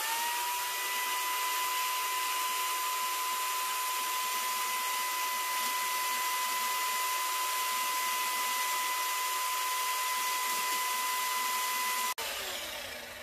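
Corded jigsaw starting up, its motor whine rising as it spins up, then running steadily through a cut in a wooden slat. It is switched off suddenly near the end and winds down.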